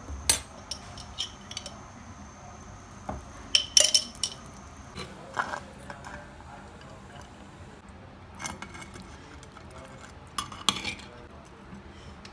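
Metal serving spoon scraping and clinking against a clay handi pot and a plate while rice is spooned out, an irregular scatter of sharp clinks with the loudest cluster about four seconds in.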